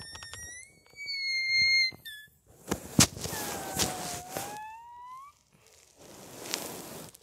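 A child making high-pitched, whistle-like squeaks with his mouth: a tone that slides up and holds for about two seconds. Then comes breathy blowing with a lower tone sliding down and back up, a sharp click about three seconds in, and more blowing near the end.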